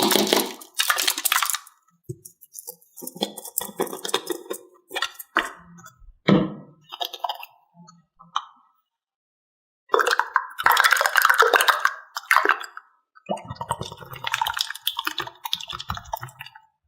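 Toys being handled: a string of short clinks, taps and clatters, broken by a second or so of silence midway, then a denser run of clattering.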